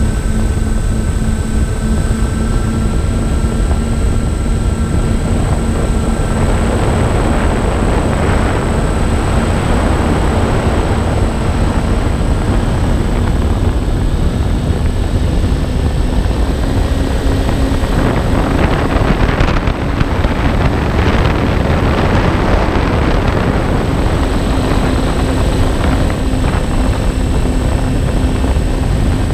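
Twin electric motors and propellers of a MyTwinDream FPV plane humming steadily in flight, with heavy wind rush on the onboard camera's microphone. The motor tone rises slightly a little past halfway, and a faint high whine runs underneath.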